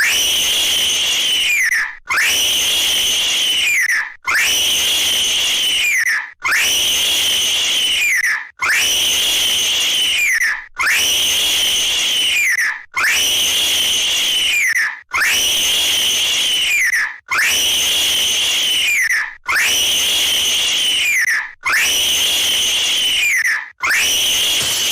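A high-pitched scream sound effect, the same short clip looped over and over, about a dozen times, each repeat ending in a falling pitch and cutting off abruptly before starting again.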